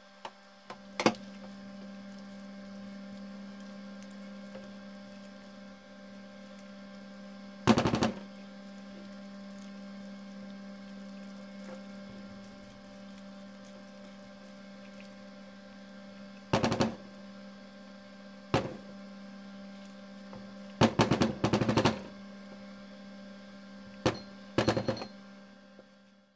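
Steady low electrical hum under scattered knocks and clatters of a silicone spatula stirring and scraping thick, half-cooked hot-process soap paste in a ceramic slow-cooker crock. The crock's lid clatters back on near the end.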